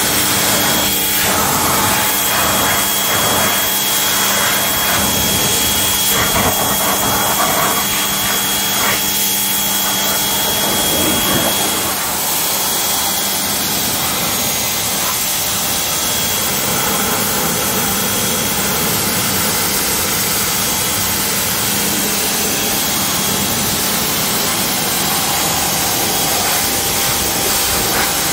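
Craftsman 1900 PSI pressure washer running, its water jet hissing as it sprays the car's tyre, grille and bumper. The machine's steady hum drops away about eleven seconds in, while the spray's hiss goes on.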